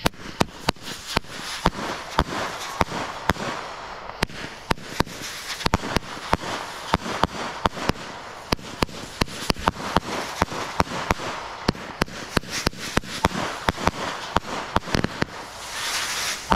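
Fox Fireworks Spiral Vortex, a 25-shot 200-gram angle cake, firing in quick succession. Its shots lift off and burst as a fast, irregular string of sharp pops, with a hiss from the spinning whirlwind tails between them that swells near the end.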